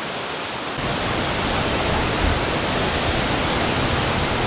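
Water pouring over a low dam's spillway, a steady loud rush; about a second in it grows louder and deeper. A brief low thump about two seconds in.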